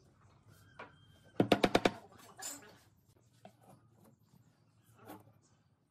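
A hammer tapping a small nail into a pine board in a quick run of about five taps, about a second and a half in. Between them come a few single lighter knocks and clatters of tools on the bench.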